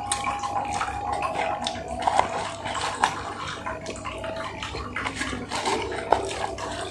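Close-up eating sounds: fried chicken being bitten and chewed with wet smacking and crackling clicks, mixed with the rustle of the cardboard food box being handled.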